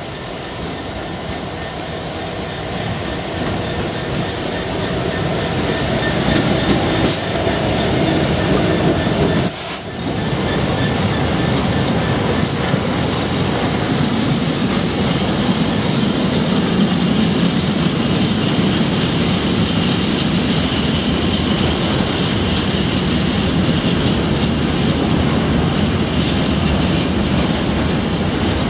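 Class 66 diesel-electric freight locomotive approaching under power, its engine growing louder over the first several seconds. After a brief dip about ten seconds in, a long container freight train rolls past with steady wheel and rail noise and clicking over the rail joints.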